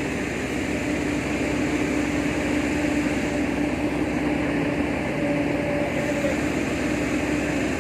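Heavy diesel engine running steadily, a continuous drone that builds slightly in loudness over the first couple of seconds.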